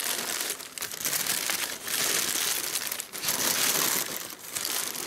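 Black tissue paper crinkling and rustling as hands dig through it and pull out a skein of yarn. It comes in several bouts with brief pauses between them.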